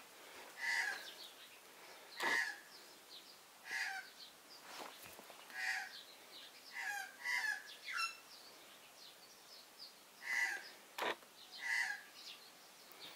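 Australian magpie giving a series of short, harsh calls, one every second or two, with a few brief sharp clicks among them.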